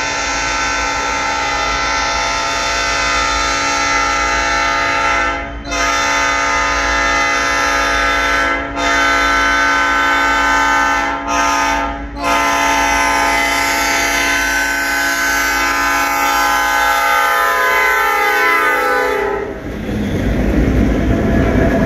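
Canadian National diesel locomotive horn sounding for a grade crossing in long blasts with a few brief gaps and one short blast about 11 seconds in. The last blast is held, drops in pitch as the locomotive passes, and stops about 19 seconds in. The rumble of the passing diesel locomotives and their wheels on the rails then takes over.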